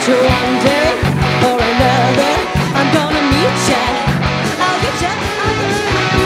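Live rock band playing: electric guitars, bass and drum kit over a steady beat, with a melody line that bends in pitch.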